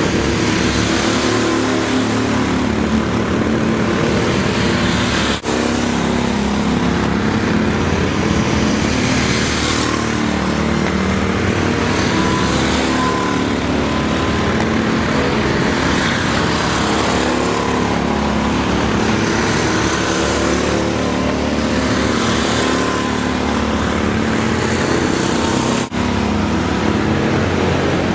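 Several go-kart engines running together around a track, their pitch rising and falling as the karts speed up and slow down. The sound dips for an instant twice.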